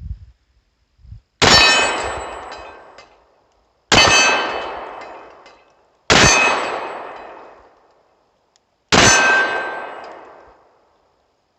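Four shots from a Sccy DVG-1 9mm pistol, spaced two to three seconds apart. Each is a sharp crack with a ringing tail lasting about two seconds. The slide locks back on an empty magazine after the last one.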